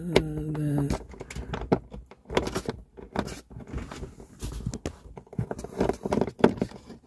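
Small metal clicks and rattles as a 5.5 mm socket on an extension is turned by hand, backing out the mounting screws of a car's center dash speaker. They come in short irregular clusters.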